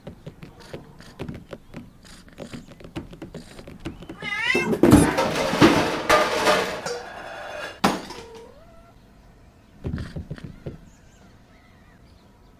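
A cat meowing: a loud wavering call about four seconds in runs into a couple of seconds of harsh, rough vocalising, and a short meow follows a little later. Scattered small clicks and knocks come before and after.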